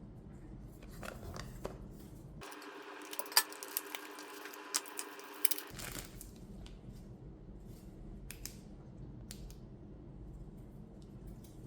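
Hands handling a small product box and its packaging: light rustling and scraping, with a cluster of sharp clicks and taps about three to five seconds in.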